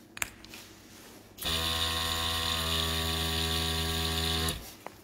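Small electric airbrush compressor running for about three seconds with a steady hum and air hiss, spraying nail paint, then cutting off; a sharp click comes shortly before it starts.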